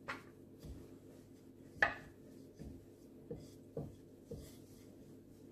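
A few light knocks and scrapes of a rolling pin and a knife against a steel plate as thin rolled methi thepla dough is lifted and trimmed, the sharpest knock a little under two seconds in, over a faint steady hum.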